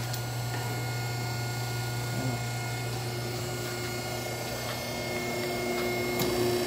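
Hydraulic hose crimping machine's electric pump motor running with a steady hum; a second steady tone joins it about halfway through.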